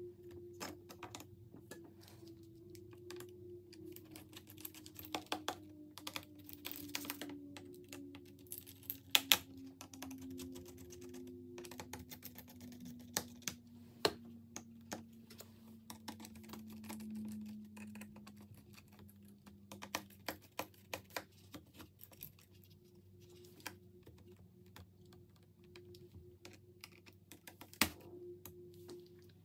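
Small clicks, taps and scrapes of plastic and metal laptop parts being handled and unscrewed, as the cooling fans and heatsink of a Lenovo Legion Y700 gaming laptop are taken out. A few sharper knocks stand out, over a faint low hum that slowly drops in pitch.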